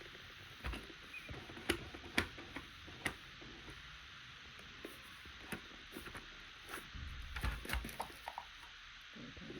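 Light clicks and taps of handling, scattered irregularly over a steady faint hiss; the sharpest two come about two seconds in.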